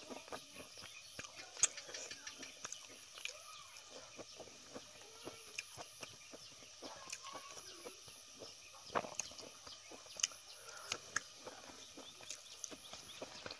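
Close-miked eating sounds: wet mouth clicks and chewing, with fingers picking through rice and greens on a banana leaf, giving a string of small sharp clicks and crackles.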